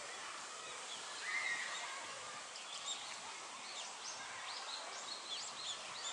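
Outdoor ambience with small birds chirping: a cluster of short, high chirps in the middle of the stretch over a steady background hiss.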